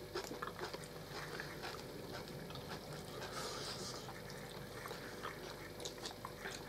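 Quiet eating at a table: soft chewing of meat and spaghetti with scattered light clicks of forks against plates.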